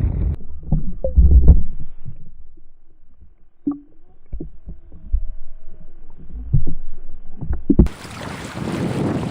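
Muffled low thumps and knocks with a few sharp clicks, loudest about a second in and again around six to seven seconds in. About eight seconds in the sound switches to steady wind noise on the microphone.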